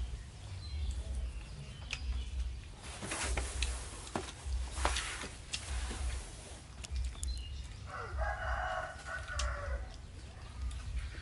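A rooster crows once, for about a second and a half, starting about eight seconds in. Before it there are brief rustles and knocks, with a steady low rumble underneath.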